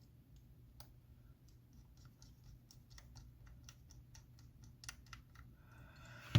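Faint, rapid ticking, about four clicks a second, as a small pentalobe screwdriver turns the bottom screws into an iPhone X. A sharp knock comes at the very end.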